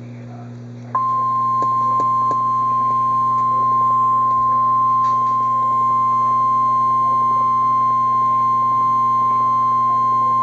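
NOAA Weather Radio's 1050 Hz warning alarm tone: a single loud, steady beep that starts abruptly about a second in and holds unbroken, over a low steady hum. It signals that a warning, here a tornado warning, is about to be read.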